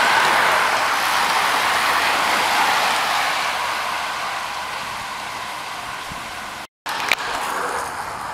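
A bunch of road racing bicycles sweeping past, a steady rush of tyres and freewheels that fades as the riders pull away. It cuts off abruptly near the end, and a quieter street background follows with a single sharp click.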